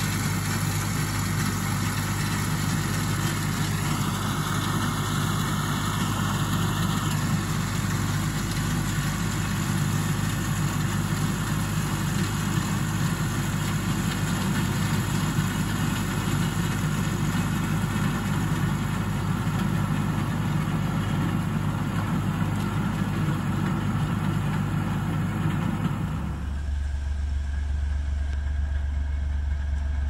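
John Deere 5055E tractor's diesel engine running steadily as it pulls and drives an old one-row corn picker through the corn, with the machinery's noise over the engine hum. About four seconds before the end the sound changes abruptly to a lower, duller engine hum.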